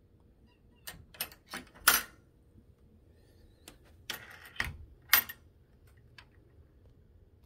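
Sharp clicks and rattles of a corrugated plastic panel being knocked and brushed. They come in two bunches, about a second in and again about four seconds in, and the loudest clicks fall near two seconds and just after five.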